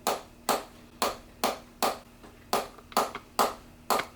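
Rhythmic percussive tapping on the lower back, about two sharp strikes a second, as the sacroiliac (SI) joint is worked loose during a chiropractic treatment.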